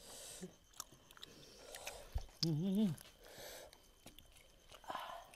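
Close-up chewing and biting of roasted duck, with wet mouth smacks, small clicks and breaths. About halfway through a brief hummed vocal sound rises and falls.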